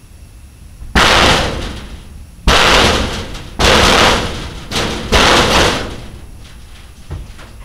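Five loud bangs and slams in about four seconds, each crashing and dying away over roughly a second, followed by a few fainter knocks near the end.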